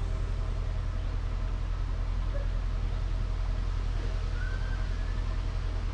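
A narrowboat's diesel engine running steadily with a low drone as the boat cruises.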